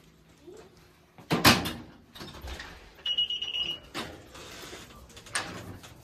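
A sharp thump about a second and a half in, then a single steady high-pitched electronic beep lasting under a second about three seconds in, followed by a couple of softer knocks.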